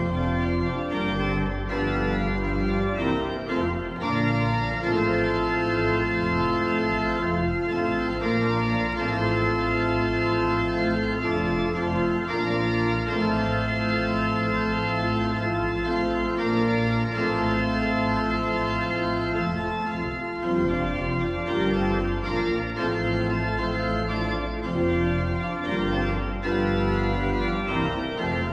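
Church organ playing held chords that change every second or two.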